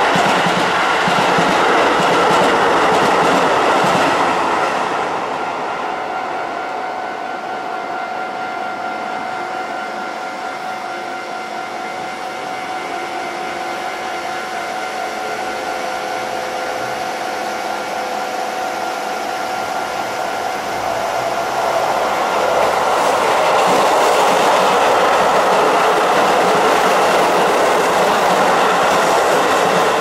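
Keisei Main Line trains at a level crossing: one train runs past with wheel rumble and clatter over the first few seconds, then dies away. While the tracks are clear, the crossing's warning bell rings steadily. About twenty seconds in, a second train approaches and its running noise grows loud again.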